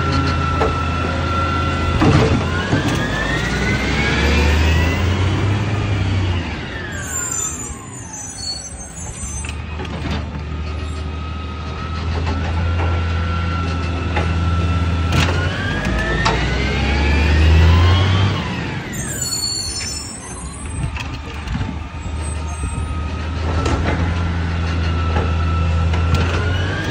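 Side-loader garbage truck's engine revving and its hydraulics whining as the automated arm lifts wheelie bins. The pitch climbs for a few seconds and then falls back, twice, over a steady idle, with a short rattle near the top of each lift.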